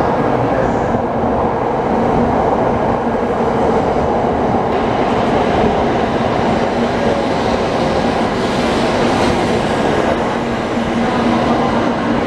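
700 Series Shinkansen bullet train arriving along a station platform, its carriages passing close by with a steady, loud rush of wheel and air noise.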